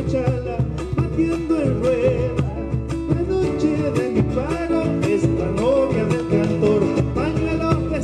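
Argentine folk gato performed live: a man singing over a strummed acoustic guitar, with a bombo legüero beaten with sticks on its head and rim keeping the rhythm.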